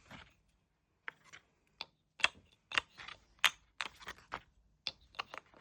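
Kendama being handled: about a dozen irregular sharp clicks and knocks.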